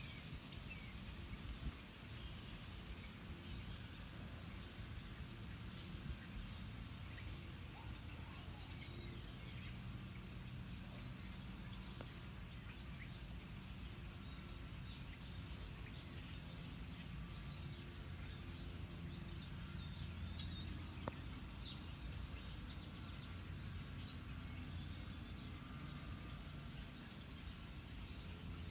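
Many small birds chirping in quick, short falling calls, over a steady low rumble.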